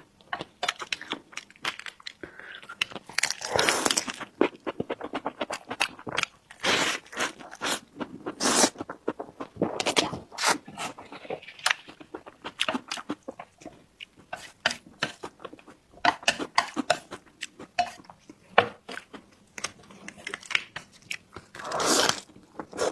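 Close-miked eating: a person biting and chewing food, with repeated crunching and many small mouth clicks.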